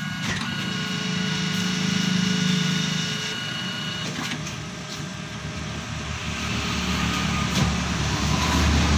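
Canon imageRUNNER 2206 copier running a copy job just after Start is pressed: a steady motor whir and hum, with a thin high whine for the first few seconds and a few sharp mechanical clicks.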